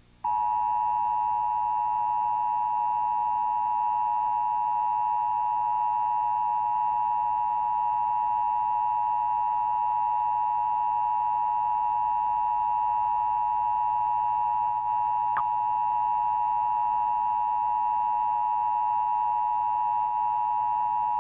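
Emergency Broadcast System attention signal: the steady two-tone alarm of 853 Hz and 960 Hz sounded together, held unbroken for about twenty seconds to mark a test of the system.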